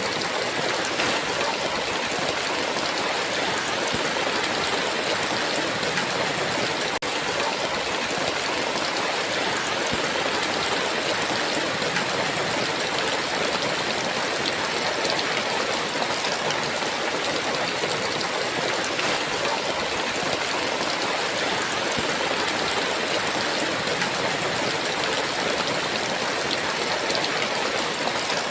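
Heavy rain falling steadily: a dense, even hiss of downpour with no separate drops or thunder standing out.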